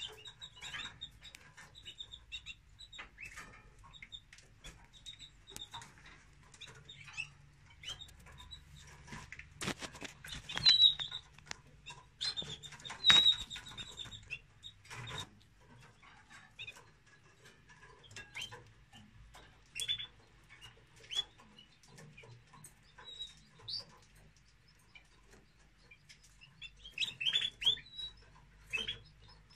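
Canary nestlings begging: thin, high, short peeps in scattered bursts, busiest about ten to thirteen seconds in and again near the end, as the male canary feeds them. A few sharp clicks and knocks cut in around the middle.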